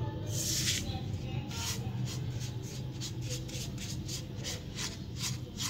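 Silicone spatula stirring semolina and flour roasting in oil in a nonstick pan, a quick run of short scraping strokes, about three a second, over a steady low hum.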